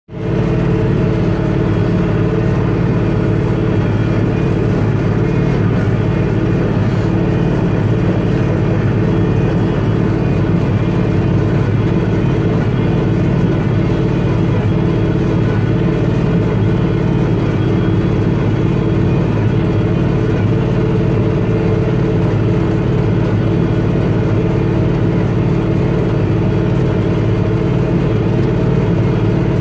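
Bobcat CT335 compact tractor's engine running steadily at working speed, driving a New Holland S66 square baler that is baling hay.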